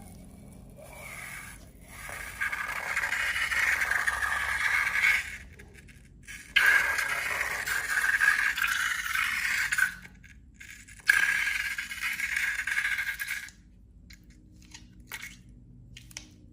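Three long scraping strokes of a few seconds each, followed by a few light clicks near the end.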